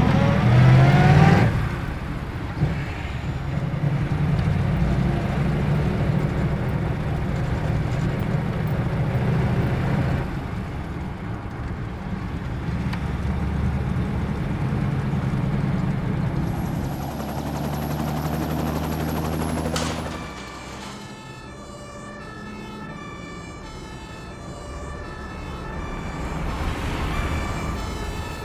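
Fire truck sound effect: a siren wails rising at the start over a steady low engine rumble. After about twenty seconds the rumble stops and a quieter pattern of short repeated tones follows.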